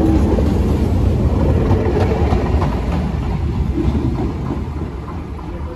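Old Circumvesuviana FE220 narrow-gauge electric train pulling out of the station. The low rumble of its motors and wheels fades from about halfway through as it draws away down the track.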